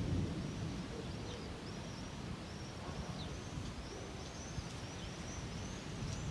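Birds calling with short, high chirps repeated every half second or so, over a low steady rumble.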